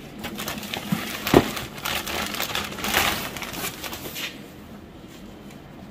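Thin clear plastic bag crinkling and rustling as a cloth banner is pulled out of it, with one dull thump about a second and a half in. The crinkling stops a little over four seconds in.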